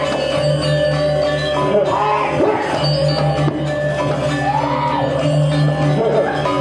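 Balinese gamelan playing: bronze metallophones struck in a ringing, interlocking pattern over a sustained low tone.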